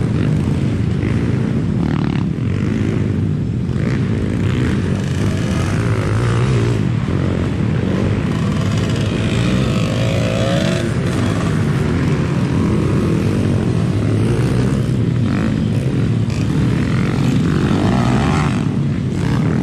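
Motocross dirt bikes racing on the track, engines running hard with revs rising and falling; a clear rev up and down about ten seconds in as a bike goes over a jump.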